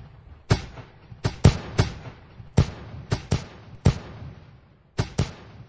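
Fireworks going off: about a dozen sharp bangs at an uneven pace, some in quick pairs, each followed by a short echoing tail.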